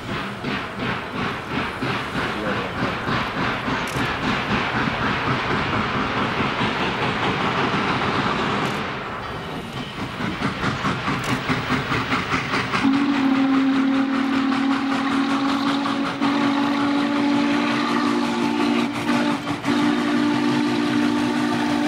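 A Norfolk & Western steam locomotive working, with an even rhythm of exhaust chuffs. A little past halfway its steam whistle starts a long, low, steady blast that keeps on, broken briefly once near the end.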